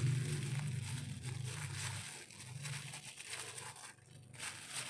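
Faint soft rustling and light crinkling of hands rolling a palm-sugar-filled ball of glutinous rice dough. A low hum fades out about two seconds in.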